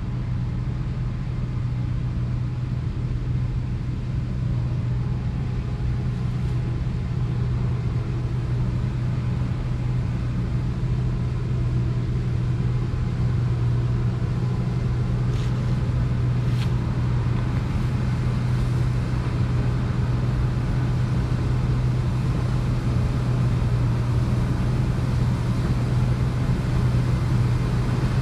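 Claas Lexion 430 combine harvester running while threshing rapeseed: a steady low hum of engine and threshing machinery that grows slightly louder as the machine comes closer.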